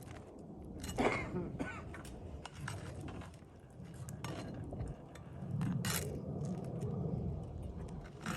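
Metal tool working nails out from under asphalt roof shingles: a few sharp metallic clinks and scrapes, spaced a couple of seconds apart, over low rustling and handling.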